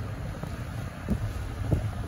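Car driving: steady low road rumble with wind buffeting the microphone, and a few short low thumps about a second in and again near the end.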